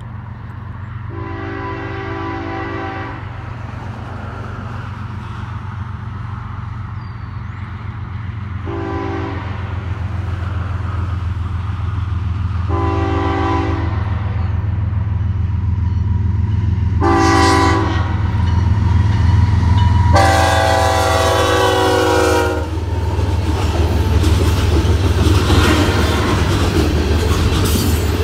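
Canadian Pacific diesel freight train approaching and passing: the locomotive's air horn sounds five times, the last blast the longest and loudest, over a deep engine rumble that grows steadily louder. After the locomotives go by, covered hopper cars roll past with a steady clickety-clack.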